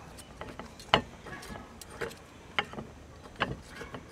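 Hands working a ball of dough in a glass mixing bowl: a few sharp taps and clicks against the glass, the loudest about a second in.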